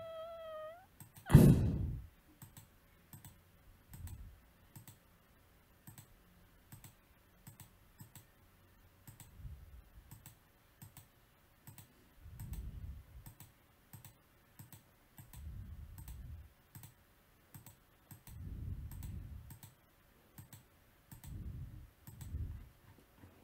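Computer mouse clicking over and over at a steady pace, with one loud sharp thump about a second and a half in and a few dull low swells in the second half. A person hums briefly right at the start.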